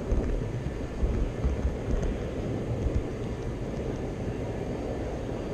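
Model train rolling along the track with a GoPro riding on the car: a steady low rumble from the wheels on the rails, with a few small bumps in the first few seconds, over the hall noise of a busy train show.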